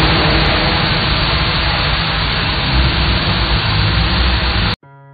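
Loud, steady rushing noise with a low rumble underneath, which cuts off abruptly near the end. Soft music with sustained notes follows.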